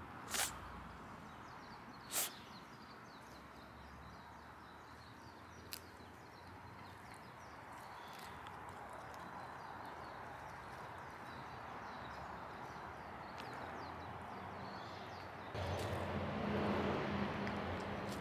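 Cats biting fresh cat grass: two sharp crunches in the first couple of seconds and a smaller one a few seconds later, over a steady outdoor hiss with faint high chirps. Near the end a louder low hum comes in.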